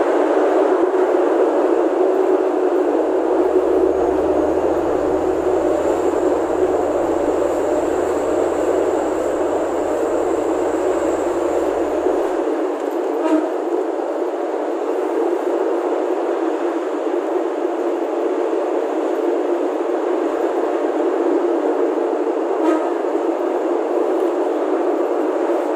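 Steady running noise inside the driver's cab of a KRDI Jenggala diesel multiple unit travelling along the track, wheels on rail and engine together. A low hum underneath stops abruptly about halfway through.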